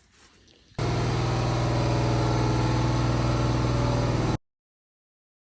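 The Audi A6's 2.0-litre four-cylinder diesel engine idling steadily after the thermostat replacement. It comes in abruptly about a second in and cuts off sharply near the end.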